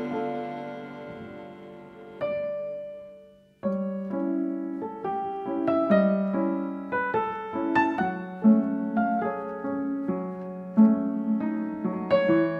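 Background piano music. A held chord fades away, a single note rings and dies out, and after a brief silence about three and a half seconds in, a new piano passage begins with a steady run of notes.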